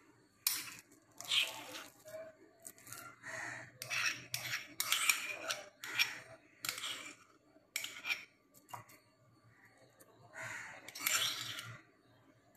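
Glass bowls and a spoon being handled on a stone kitchen counter: a string of short, irregular scrapes and clatters, with a lull shortly after the middle.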